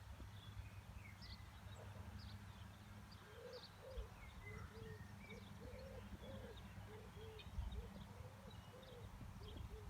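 Faint steady low hum of a distant tractor engine under wind rumble. From about three and a half seconds in, a long run of short, low cooing bird calls, two or three a second, with small birds chirping higher up.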